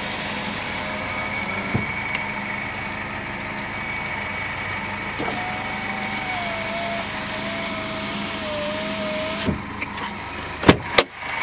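Electric power window motor in the driver's door of a 2013 GAZ Gazelle Next running the glass along, a wavering whine that stops with a knock as the glass reaches its end about nine and a half seconds in, and a sharp click a second later. The truck's 2.8-litre four-cylinder diesel idles steadily underneath.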